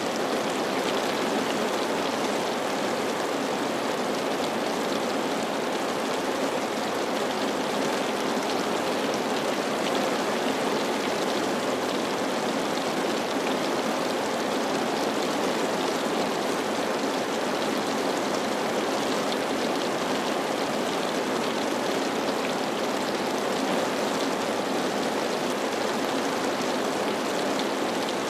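Steady rainfall, an even wash of noise that keeps a constant level with no breaks.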